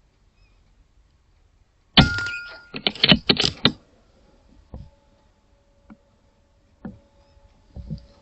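A single sharp air rifle shot from a .22 PCP air rifle, followed by about a second and a half of clattering knocks with a brief metallic ring. Afterwards come a few soft, scattered taps and a faint steady whine.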